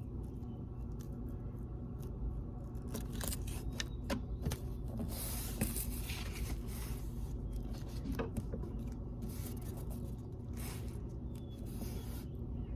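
Scissors cutting paper, with paper rustling and small handling clicks on a desk, over a low steady hum.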